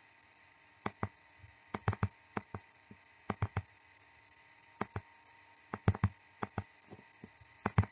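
Sharp, irregular clicks, often in quick pairs or small clusters, from the input device used to hand-write letters on a computer screen, over a faint steady hum.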